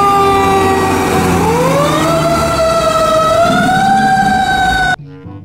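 Fire truck siren wailing with a low engine rumble underneath. The tone slowly falls, rises again about a second and a half in, climbs a little more near the end, then cuts off suddenly.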